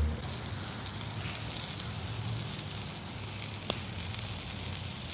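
Steaks sizzling directly on hot charcoal just after their first flip, a steady hiss of searing meat and fire. One small click about three and a half seconds in.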